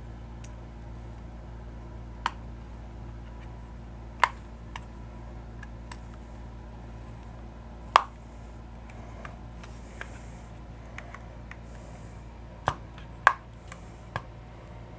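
Sharp plastic clicks and snaps, about six spread out, as plastic pry tools pop the snap clips of an Xbox Elite 2 controller's shell apart along the seam, over a steady low hum.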